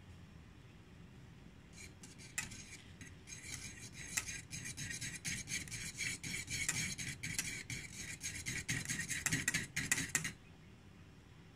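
A utensil stirring liquid jelly mixture quickly in a metal pot, scraping and clinking against the sides in rapid strokes. It starts about two seconds in and stops suddenly near the end.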